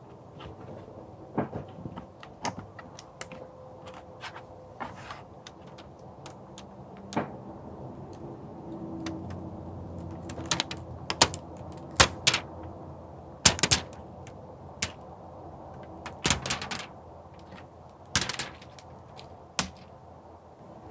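Protective plastic film being peeled off a Logitech MK520 keyboard: irregular sharp crackles and clicks, with a few longer crinkling rasps.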